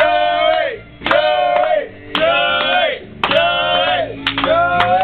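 A group of men chanting in unison in a steady rhythm, one drawn-out syllable about once a second, with some clapping.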